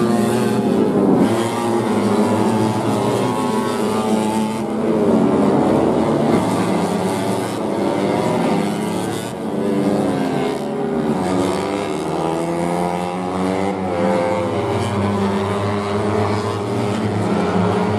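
Several tuned 150cc four-stroke underbone racing motorcycles running at high revs, overlapping, their engine pitch rising and falling as they shift and pass.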